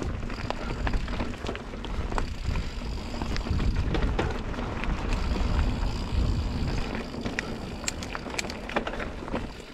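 Mountain bike descending a dirt trail at speed: wind buffeting the action camera's microphone, with tyres rolling over dirt and the bike's chain and parts clattering in many small knocks over the bumps.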